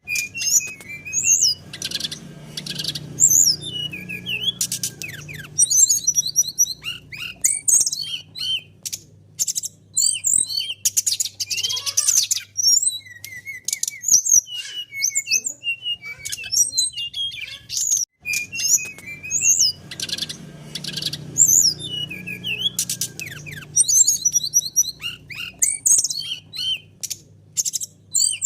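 Brown-chested jungle flycatcher singing a busy, varied song of rapid chirps, trills and quick up-and-down whistles, with the same passage repeating about 18 seconds later.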